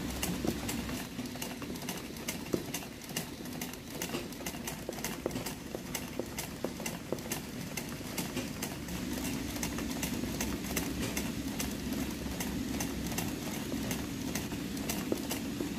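Sewing machine stitching free-hand embroidery through fabric in a hoop: a fast, even ticking of the needle mechanism over the motor's hum, which grows louder about halfway through.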